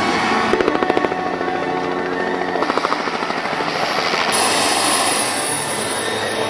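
Light two-bladed helicopter running, its rotor beating in quick regular pulses that stand out twice, with background music underneath.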